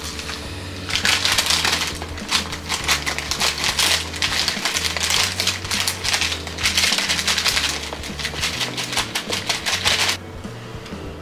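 Frozen mixed berries being shaken out of a plastic bag into a bowl: a dense rattle of small hard pieces with the bag crinkling. It starts about a second in and stops abruptly near the end, over background music.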